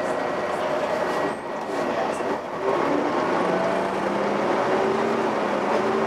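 Volvo B7TL double-decker bus running under way, heard from inside on the upper deck. The level dips briefly about a second and a half in, then several whining tones from the drivetrain rise steadily in pitch as the bus picks up speed.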